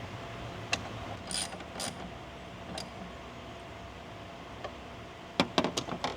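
Clicks and brief rustles from handling the truck's fuse box parts and wiring, ending in a quick run of four or five sharp clicks near the end, as of a cover or connector being snapped into place.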